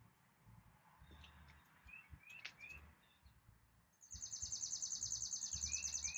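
Faint outdoor birdsong: a few short rising chirps, then about four seconds in a rapid high buzzy trill that lasts about two seconds.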